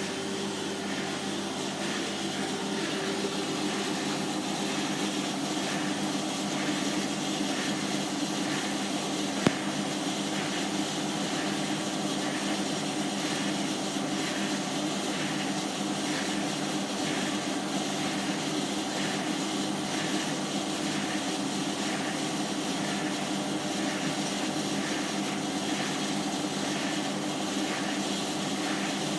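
Hotpoint washing machine spinning with a steady hum, and a squeak and scrape that comes back about once a second. A single sharp click sounds about nine and a half seconds in.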